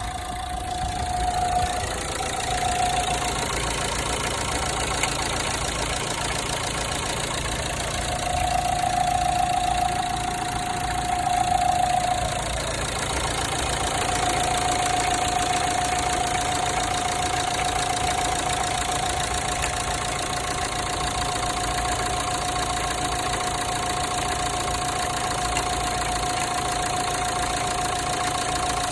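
Renault Megane III 1.5 dCi four-cylinder diesel engine idling, with a metallic cracking rattle from around the accessory belts and a steady high whine; the noise comes from the belt drive, its tensioner or pulleys. It swells for a few seconds about a third of the way through.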